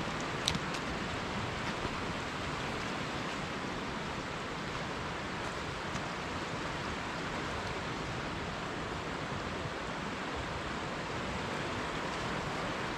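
Steady rush of a mountain river's water, with one sharp click about half a second in.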